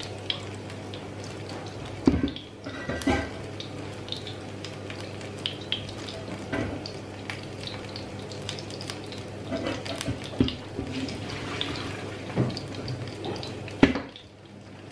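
Water running and splashing in a kitchen sink as a pot of boiled potatoes is drained, with several sharp clanks of the pot.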